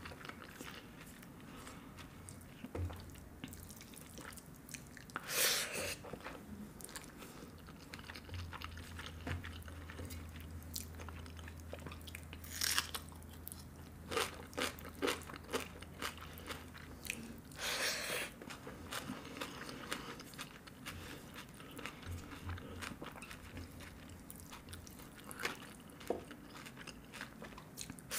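Close-miked chewing and mouth sounds of someone eating rice and peas by hand, with many small wet clicks and three louder crunchy bursts spread through. Fingers gather food on a steel plate between bites.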